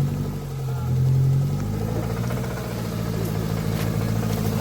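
Off-road 4x4's engine running at low speed under load, rising briefly about a second in and then settling back to a steady note.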